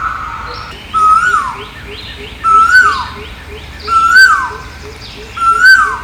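Asian koel calling: four loud calls about a second and a half apart, each a note that rises and then sweeps down steeply.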